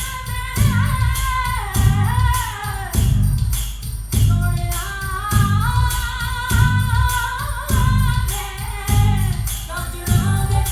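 A song with a sung vocal melody over a steady bass beat of about one and a half beats a second and ticking high percussion, played back through Norge Millenium MK II bookshelf speakers in a sound test.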